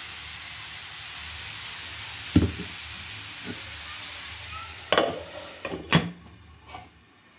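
Diced carrots and curry leaves sizzling in hot oil in a frying pan, with a few sharp knocks against the pan. About six seconds in, a glass lid is set on the pan with a clack and the sizzle drops away.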